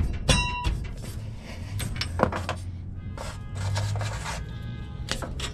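Ratchet working the 14 mm lower shock absorber bolt loose, with irregular clicks and knocks of metal on metal. One clink about a third of a second in rings briefly.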